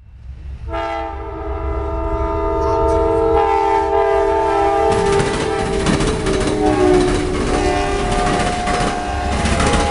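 Locomotive air horn blowing a chord of several steady tones, starting about a second in. From about five seconds in, the rumble and clatter of the passing train joins it, and the horn's tones shift slightly lower.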